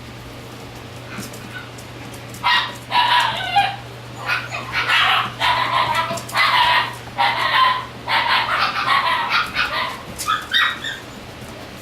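Shiba Inu puppy barking: a run of about a dozen short, high-pitched yaps that starts about two seconds in.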